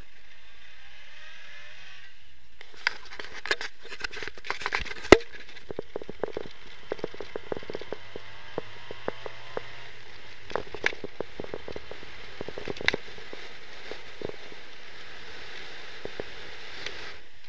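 Steady muffled running noise of a 1962 Triumph Herald 1200 on the move, heard from inside the car, with many irregular clicks and knocks over it, the loudest about five seconds in.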